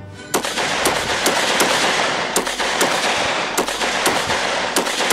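A sustained volley of rifle fire from several guns: many overlapping shots, with distinct sharp cracks several times a second, starting about a third of a second in.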